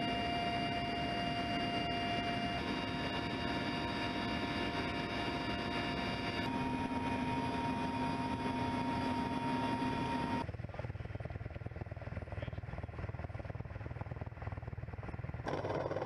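Helicopter cabin noise in flight: a dense, steady rumble with several high turbine and gearbox whines over it. The whine tones shift twice at cuts. About ten seconds in, the high sound drops away, leaving a quieter low rumble.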